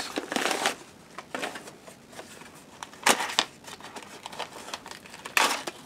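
A small cardboard box being opened and handled: a few short scraping, crinkling rustles of cardboard and packing, the loudest about three seconds in.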